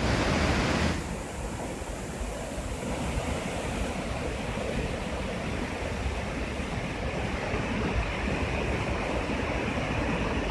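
Water pouring over the stepped overflow of a mortar-laid stone arch dam and churning through the rocky river below, a steady rushing roar. It is louder and hissier for about the first second, then settles to an even rush.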